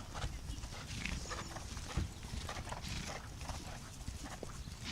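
A horse's hoofbeats during a ridden dressage test: scattered, irregular soft knocks and clicks over a steady low rumble, with one stronger knock about two seconds in.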